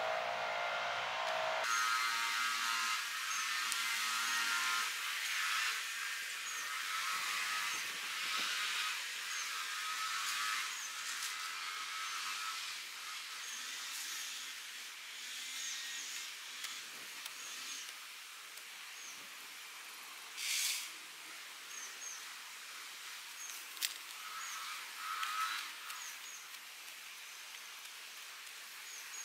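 Open-air park ambience: a steady insect drone with repeated short bird chirps, broken twice by sharp knocks of a football being kicked.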